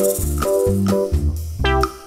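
Background music: a bouncy, light instrumental tune with plucked notes and a bass line on a steady beat.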